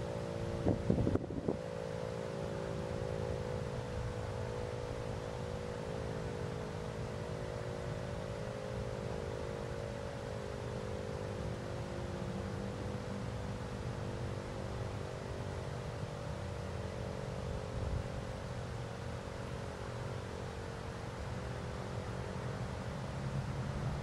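Federal Signal Model 5 outdoor warning siren sounding from a distance, its tone slowly falling in pitch and fading as the rotor winds down. Wind noise on the microphone is steady throughout, with a brief buffet about a second in.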